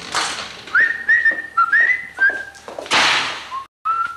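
A person whistling a short tune: a run of quick notes, each sliding up into a held pitch. A loud burst of hiss cuts across about three seconds in, and the sound drops out completely for a moment near the end.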